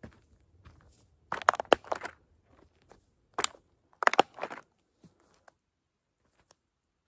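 A toy Grave Digger monster truck being crushed: crunching and cracking in three bursts, about a second in, at about three and a half seconds, and around four seconds.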